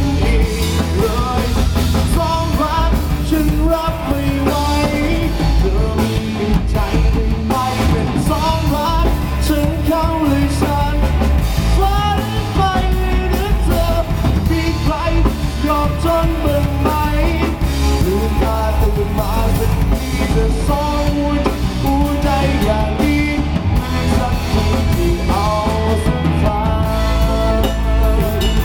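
Rock-style band music with a drum kit keeping a steady beat under a bending melodic lead line.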